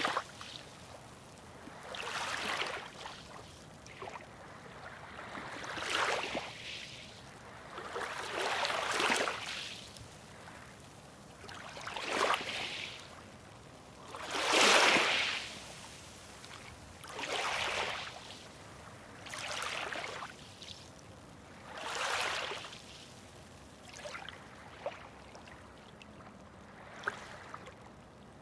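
Small waves washing in on a shore, one soft wash swelling and fading about every two to three seconds, the loudest about halfway through. A couple of faint clicks near the end.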